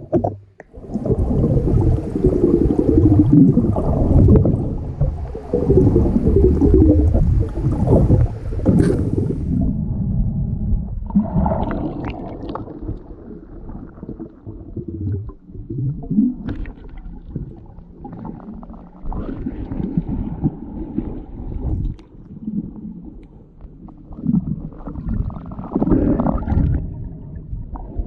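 Muffled underwater sound of water gurgling and sloshing around a camera held below the surface while snorkeling for scallops, with low rumbling and wavering tones.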